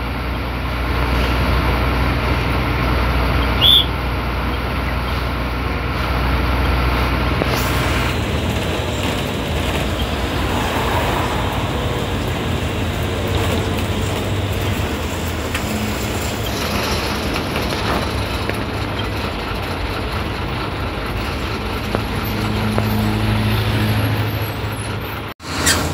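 Ashok Leyland diesel bus engine running with road and tyre noise, heard from inside the cab while driving. There is a brief high-pitched squeak about four seconds in, and the sound cuts out for a moment near the end.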